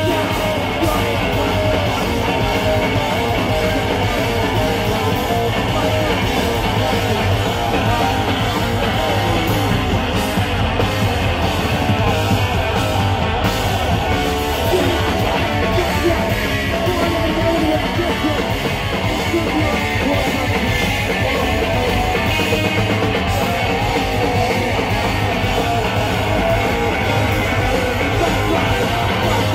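Hardcore punk band playing live, with electric guitar, bass guitar and drum kit, loud and continuous.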